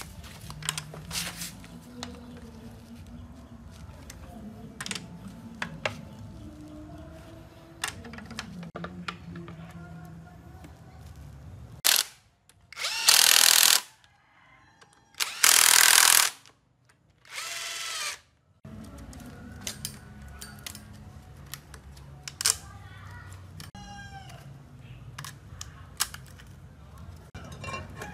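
Cordless impact wrench run in three short bursts of about a second and a half each, starting about twelve seconds in, driving bolts on the top of a Dongan engine's cylinder head. Around them come scattered metallic clicks and knocks as engine parts are handled.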